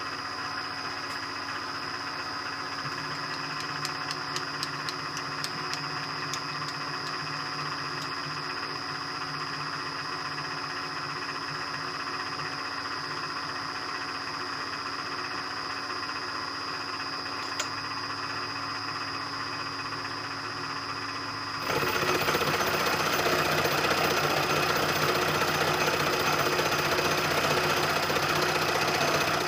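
Milling machine spindle running with an end mill cutting scallops into the rim of a metal handwheel: a steady whine over the cutting noise, with a short run of light ticks about four seconds in. About two-thirds of the way through, the sound suddenly gets louder and rougher.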